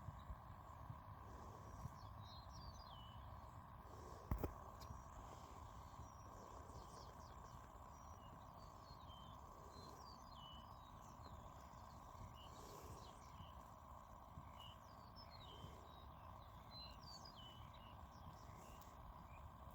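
Quiet outdoor ambience: faint, scattered chirps and short whistled calls from several birds over a low rumble of breeze. A single sharp click sounds about four seconds in.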